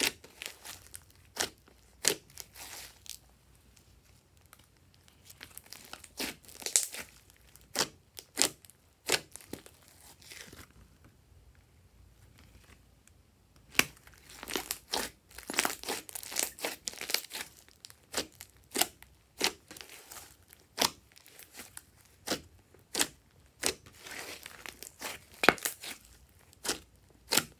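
Glossy slime being stretched, squeezed and pressed by hand: irregular wet pops, clicks and crackles as trapped air pockets burst, coming in quick clusters with a quieter lull near the middle.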